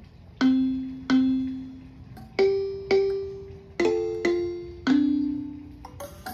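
Electronic kalimba in its kalimba voice, its keys pushed down one after another to sound seven plucked-style notes. Each note starts sharply and fades away. Most notes come twice in a row, climbing from a low note to higher ones, with two notes together in the middle, and it drops back to a low note near the end.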